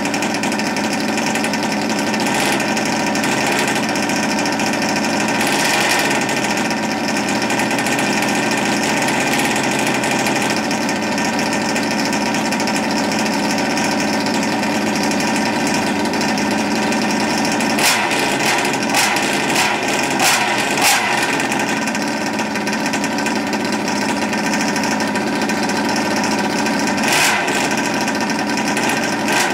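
OBR 57cc twin-cylinder two-stroke engine of an RC buggy running steadily at idle, with a few brief louder bursts in the second half. The owner says it is running rich, not yet run in, with the carburettors not yet fine-tuned.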